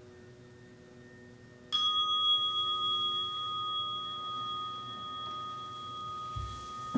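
A meditation bell, singing-bowl type, struck once about two seconds in and left ringing with two clear, steady tones that slowly fade, the strike that closes the sitting period. Near the end a soft low thump as the sitter bows forward.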